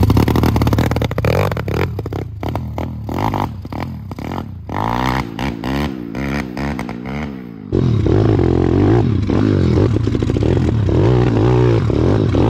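Pit bike's small single-cylinder four-stroke engine revving unevenly under load on a climb, its pitch rising and falling quickly with the throttle. About eight seconds in it turns louder and steadier, the engine running hard close to the microphone.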